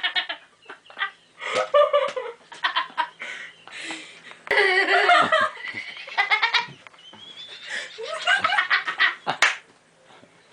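A person laughing in several fits, each a run of quick pulses, with short pauses between them.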